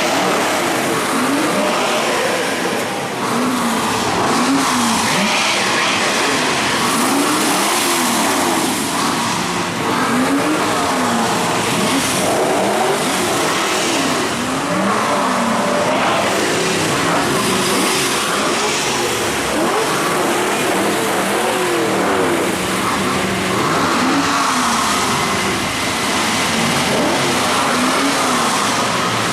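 Several hot rod engines revving again and again at once, their pitches climbing and falling over one another, answering a call for the drivers to rev up.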